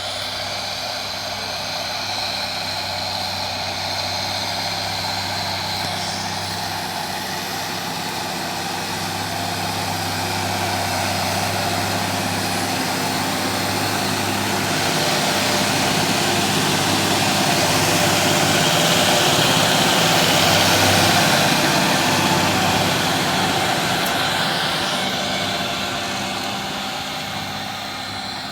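John Deere 6140B tractor's engine running steadily while it works a field with a rotavator. It grows louder to a peak about two-thirds of the way through, then fades somewhat.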